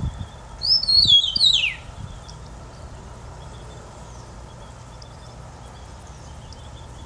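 Eastern meadowlark singing one phrase of slurred whistles that slide downward in pitch, starting about half a second in and lasting about a second.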